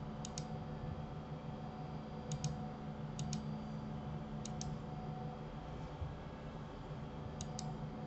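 Computer mouse clicking in short pairs, five times, as edges are selected on the screen, over a steady low hum in the room.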